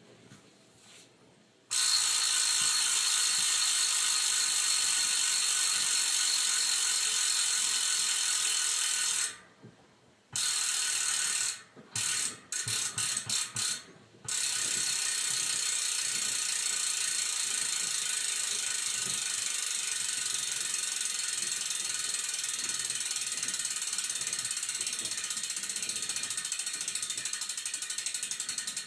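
Atomlab Pimplite rear hub freehub on a Spank Stiffy 40Al wheel, its pawls clicking in a loud, fast, even ratchet buzz as the spun wheel coasts. The buzz starts about two seconds in and breaks off briefly near the middle, with a few short stop-start bursts. It then runs on steadily, the single clicks growing more distinct near the end.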